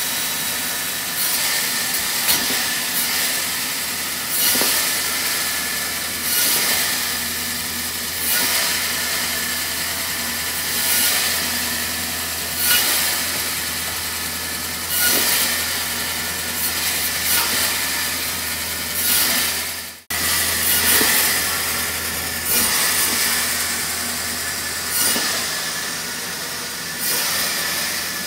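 Band saw running steadily while its blade cuts small wooden blocks fed through a wooden template. Each cut adds a louder hissing rasp, about one every two seconds, with a brief break about two-thirds of the way through.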